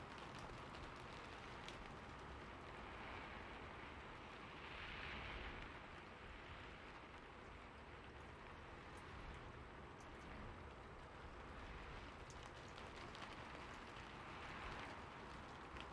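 Faint, steady rainfall: an even hiss with scattered single-drop ticks, swelling briefly about five seconds in and again near the end.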